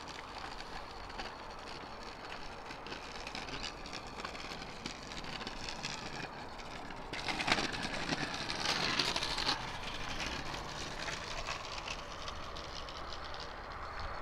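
Steady outdoor background hiss with a distant passing vehicle that swells and fades about halfway through.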